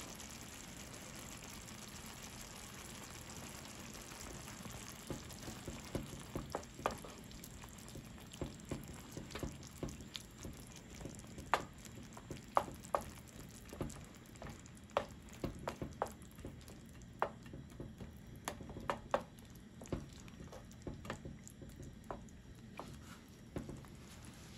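Tomato salsa simmering in a frying pan with a faint steady hiss, then stirred with a wooden spoon: from about five seconds in, irregular clicks and knocks of the spoon against the pan.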